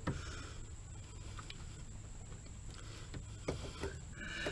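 Faint handling sounds of a rubber coolant hose being twisted and rocked on its fitting in an engine bay: a few light clicks and rubs, over a low steady hum.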